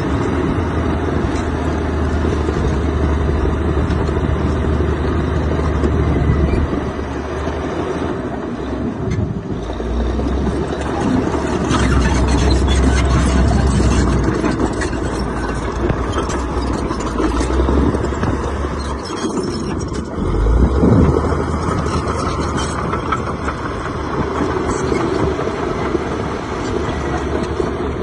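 Heavy diesel earthmoving machinery running and working, with a deep engine hum that swells and eases several times as the load changes. There is a brief louder surge about two-thirds of the way through.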